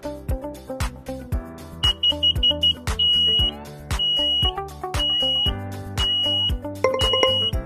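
Smoke alarm sounding over background music: a quick run of short, high-pitched beeps about two seconds in, then half-second beeps about once a second.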